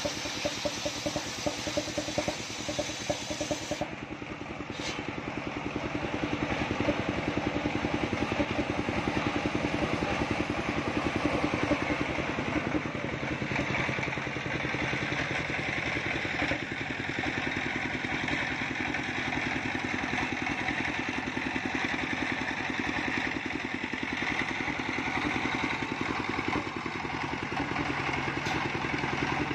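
Stationary engine running steadily, driving a trailer-mounted circular sawmill whose blade rips a coconut-palm trunk lengthwise into a beam. The sound gets louder a few seconds in and then holds steady.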